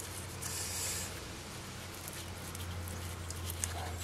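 Faint rustling and small clicks of fingers handling and working apart a small circuit board assembly, with a brief rustle in the first second, over a steady low hum.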